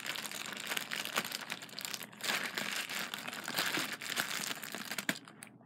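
A bag crinkling and rustling as sticky homemade slime is squeezed out of it. The rustling thins out near the end.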